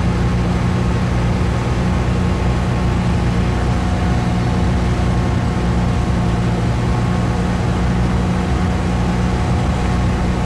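Jeep Cherokee XJ engine running steadily at low revs as it crawls over rocks, an even hum with no revving.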